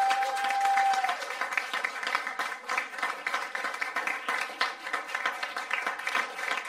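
Audience applause: dense, many-handed clapping, with a single steady held tone through about the first second.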